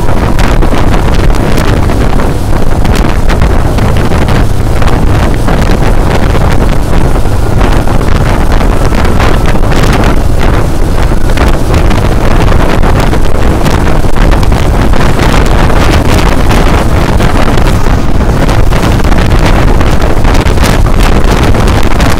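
Loud wind buffeting the microphone of a phone held in a moving vehicle, over the steady rumble of the vehicle's tyres and engine at speed.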